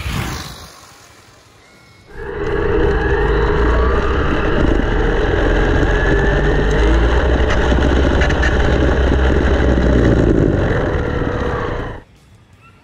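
Onboard sound of a 1/10-scale electric RC rally car, recorded by a GoPro mounted on the car: wind rushing over the microphone and tyres rumbling on asphalt, with the brushless motor's whine rising and falling as the car speeds up and slows. It begins about two seconds in and cuts off suddenly near the end.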